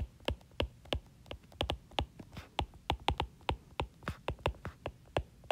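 Stylus tapping and clicking on a tablet's glass screen during handwriting: a quick, irregular run of small sharp clicks, several a second.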